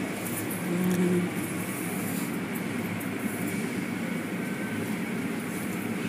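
Automatic car wash heard from inside the car: cloth wash strips sweeping and rubbing across the wet windshield over the steady rumbling hiss of the wash machinery.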